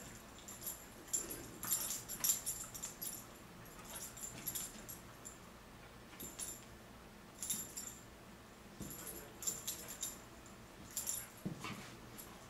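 Metal pet collar tags jingling in short, irregular bursts as a Border Collie puppy and a kitten play-wrestle.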